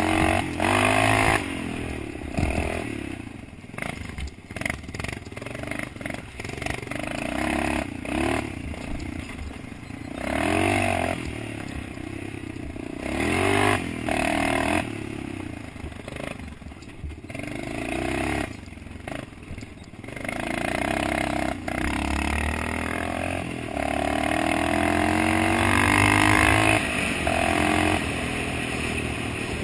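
Dirt bike engine being ridden hard on a rough trail, revving up and backing off again and again, its pitch climbing with each burst of throttle and dropping as it closes.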